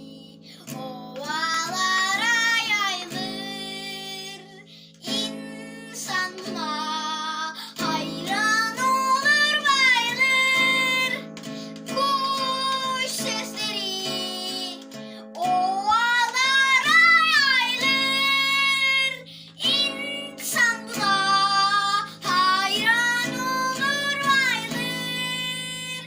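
Children's song sung by a child to acoustic guitar accompaniment, in several phrases of a few seconds each with short breaks between them.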